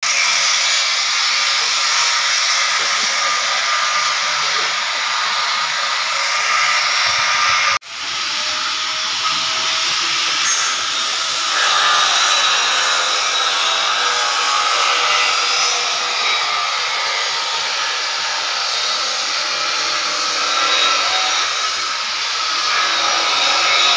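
Handheld angle grinder with a cut-off disc cutting through a steel section, a loud steady grinding whine. The sound breaks off for an instant about eight seconds in and then carries on.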